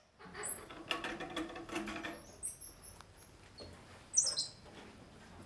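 Squirrel monkeys giving short, very high-pitched chirps and peeps: a few scattered early on, a louder cluster about four seconds in, over soft rustling and clicks.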